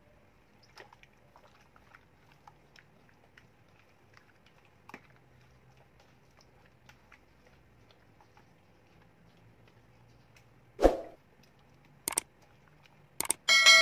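Kitchen handling noises: faint scattered small clicks, a loud thud near the end, two sharp knocks, then a metal cooking vessel struck with a ringing clang that keeps ringing.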